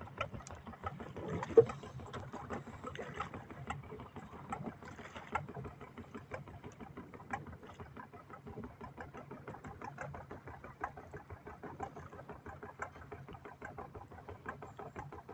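Small fishing boat's engine running steadily, a fast even chugging; one sharp knock about one and a half seconds in.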